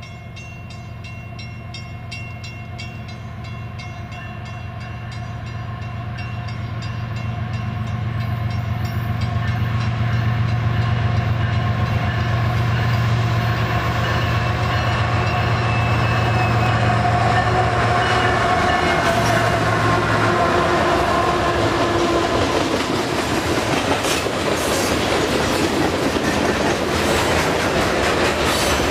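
Canadian Pacific freight train approaching and passing: the diesel locomotives' engine drone and steady whine grow louder and drop in pitch as they go by, about 18 to 20 seconds in. Then the freight cars roll past with wheels clattering over the rail joints.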